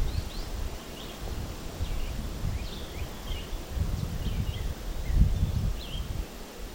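Small birds chirping in short high notes, again and again, over an uneven low rumble that swells about two thirds of the way in.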